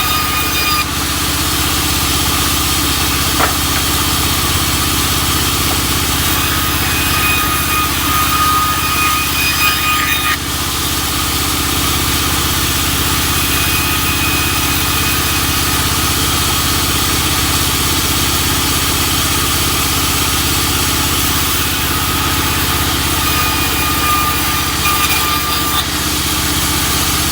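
Sawmill engine running steadily, with a thin high whine that comes and goes several times over it.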